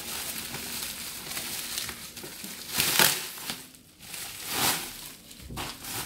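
Bubble wrap crinkling and rustling as a box is pulled out of it, with louder crackles about three seconds in and again near five seconds.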